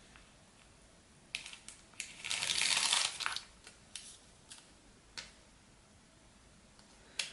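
Paper rustling as a sheet of stickers is handled, loudest from about two to three and a half seconds in, with a few light clicks and taps before and after.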